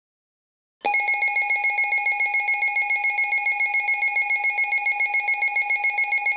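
Electronic alert tone from an emergency broadcast, a shrill two-pitch sound that pulses rapidly and evenly like a ringing bell, starting about a second in. It is the attention signal that comes before a new warning message.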